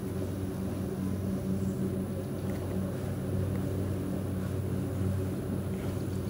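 A steady low mechanical hum from a machine or engine running at a constant speed.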